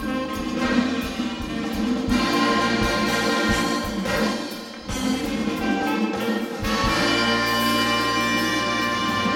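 Live big band playing a jive, horns loud over a drum kit. About seven seconds in the band settles into a long held chord that ends the number.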